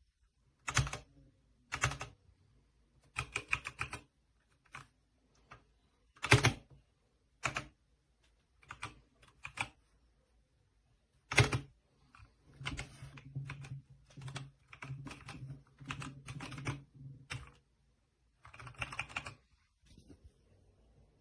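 Typing on a Redragon K617 60% mechanical keyboard: scattered keystrokes and a few louder single key strikes, with several seconds of fast, continuous typing past the middle.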